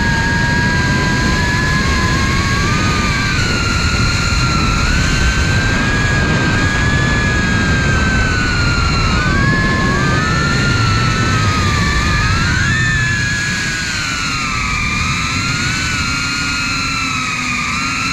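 FPV quadcopter's brushless motors and propellers whining, several pitches weaving up and down as the throttle changes, over heavy wind rush on the drone-mounted camera's microphone.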